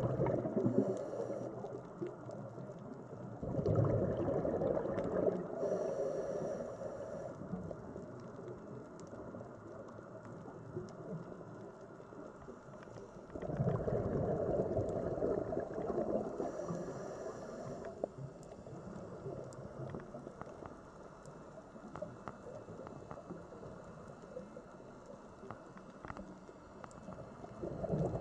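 Underwater camera audio: a low rushing and gurgling of bubbles that swells for a few seconds several times, typical of a scuba diver exhaling through the regulator, with a faint scattered crackle of clicks.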